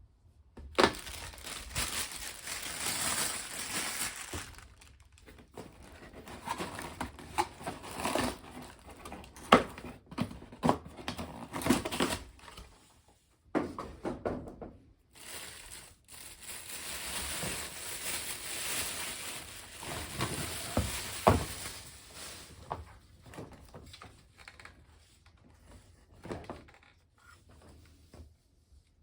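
Handling noise: two long stretches of rustling and crinkling, with scattered knocks and clicks between them.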